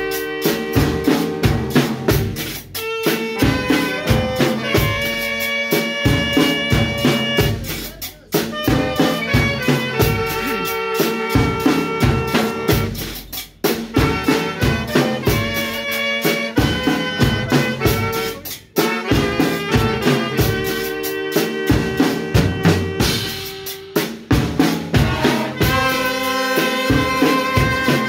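A small village band playing: saxophones carry the tune over a drum kit with a steady bass-drum beat, with trumpets and trombone in the brass. The music breaks off briefly between phrases about every five seconds.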